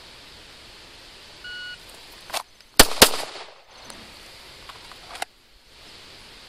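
A shot timer's start beep, then two pistol shots from a Glock fired in quick succession, about a quarter second apart, about a second later. Lighter clicks come just before the shots and near the end.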